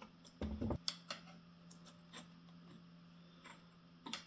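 A heavy cast-iron hydraulic cylinder is set down with a dull thud on a wooden workbench about half a second in, followed by scattered light clicks and taps of metal tools and parts being handled. A faint, low, steady hum runs underneath.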